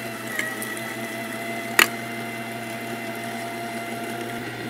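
Electric meat grinder running steadily under load, its motor humming as it pushes partially frozen pork cubes through a coarse grinding plate. A single sharp click about two seconds in.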